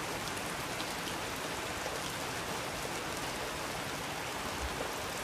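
Steady rain falling: an even hiss of drops with a few faint ticks of individual drops.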